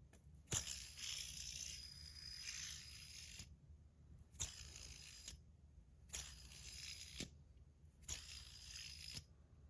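Dama Steel Horizon steel fidget spinner being flicked and spun by hand: a sharp click, then a faint high whir that fades, repeated about four times.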